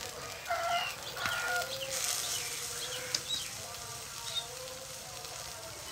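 A few short animal calls, two clearer ones about half a second and a second in, then fainter short sounds over a steady background hiss.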